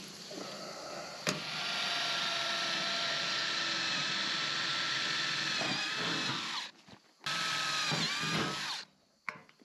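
Cordless DeWalt drill boring into a corrugated steel roofing panel. One long run of about five seconds, then a second, shorter run, each dropping in pitch as the bit bites into the metal. A single sharp click comes just before the first run.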